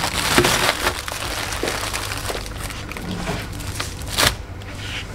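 Plastic ice cream wrappers crinkling and rustling as handfuls of bars are dropped into a plastic shopping basket, with scattered clicks and a sharper knock about four seconds in, over a low steady hum.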